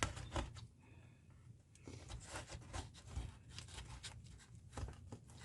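Faint, irregular scraping and rustling with a few light clicks: thin wire being pushed and fed down through a hole drilled in a plaster-and-plywood model railroad base.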